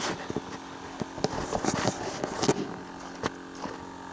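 Irregular clicks and knocks from the parts of an inflatable boat being handled and settled into place, over a steady mechanical hum.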